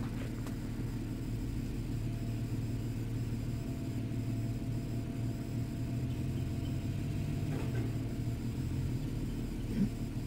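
The 4.0-litre V6 of a 2013 Toyota 4Runner SR5, heard from inside the cab, runs at a steady low rumble at low revs on the trail. A short knock comes near the end.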